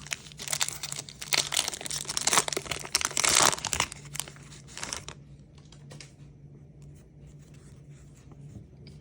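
Wrapper of a 2024-25 NBA Hoops basketball card pack being torn open and crinkled for about five seconds, then quieter scattered clicks as the cards are handled.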